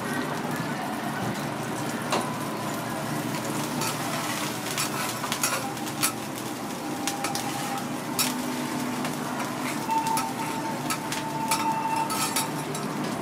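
Steady sizzling of a teppanyaki griddle, with scattered light clicks and clinks of chopsticks and a metal utensil against a glass dish.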